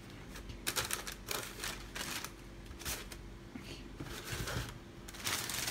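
Tissue paper in a shoebox rustling and crinkling in short, irregular bursts while a pair of knit running shoes, stuffed with paper, is lifted out and set down. The loudest crinkles come near the end.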